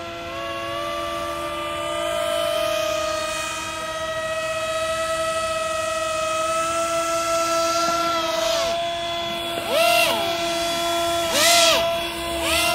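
RC hovercraft motors and fans whining steadily, with a constant lower tone under a higher one that creeps up slowly. In the second half the throttle is blipped three times, and each blip sends the pitch quickly up and back down, louder.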